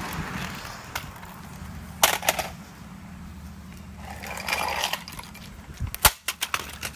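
Sharp knocks and clicks from handling a radio, in a short cluster about two seconds in and a quick run of them near the end, with a brief scraping rustle between and a low steady hum underneath.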